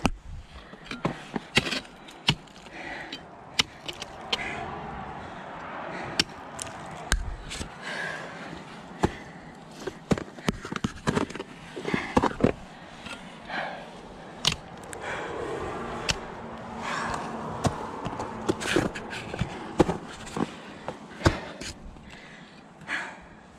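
Ice axe picks swung and driven into waterfall ice: a run of sharp, irregular strikes and chipping, some coming in quick clusters.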